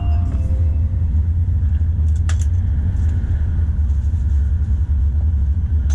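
Cabin noise of a Tokaido Shinkansen train running at speed: a steady deep rumble, with a few brief clicks or rattles about two seconds in. A chime melody's last note fades out in the first second.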